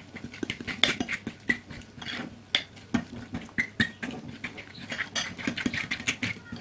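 Metal spoon stirring thick chocolate cookie dough in a glass bowl, with irregular clinks and scrapes of the spoon against the glass and a few short ringing clinks.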